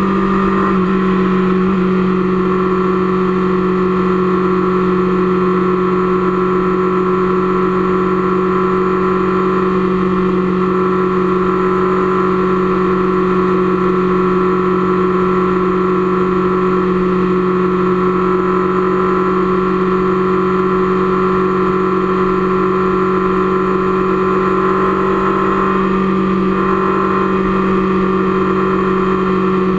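Motorcycle engine running at a steady cruising speed, an even hum that holds the same pitch throughout.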